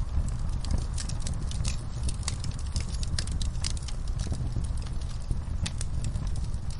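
Wood fire crackling in a fireplace: sharp, irregular pops and snaps over a steady low rumble of the flames.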